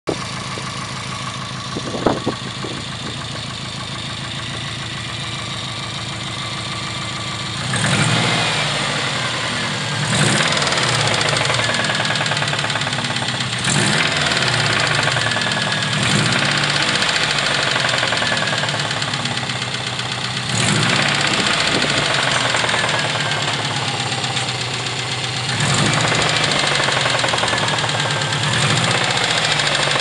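Subaru EJ20G turbocharged flat-four engine idling, then revved repeatedly from about eight seconds in, with a knocking noise that the owner calls engine knock. A single sharp click about two seconds in.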